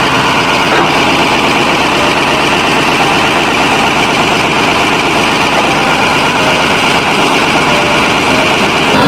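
Caterpillar D8T dozer's diesel engine running steadily at a constant speed.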